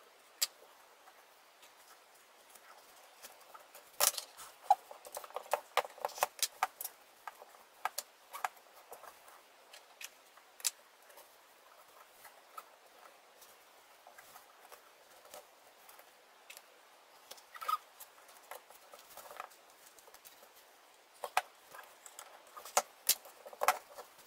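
Fabric being fitted onto the wooden rollers of a cross-stitch scroll frame: scattered light taps, clicks and rustles as the wooden bars are handled on a cutting mat. The taps come in a cluster about four seconds in and again near the end.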